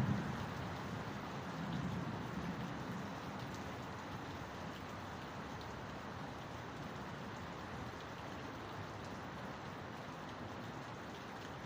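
Heavy rain falling steadily in a thunderstorm. The low rumble of thunder dies away in the first second, with a smaller swell about two seconds in.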